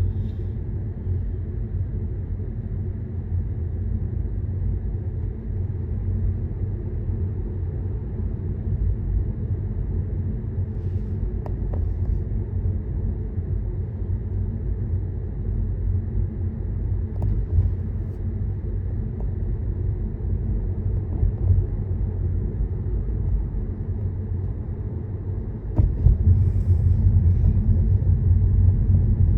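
Car driving at motorway speed: a steady, low rumble of engine, tyre and road noise, with a few faint ticks. The rumble gets suddenly louder about 26 seconds in.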